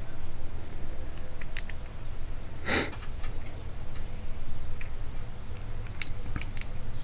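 Small metallic clicks and ticks from parts of an automotive trunk lock cylinder being worked apart with small hand tools, over a steady low hum. A short breathy rush of noise about three seconds in.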